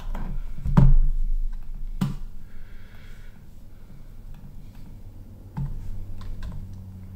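Scattered keystrokes and knocks from Happy Hacking Keyboard (HHKB) Topre keyboards being handled and tried on a desk, the loudest knock about a second in, with more clicks near the end.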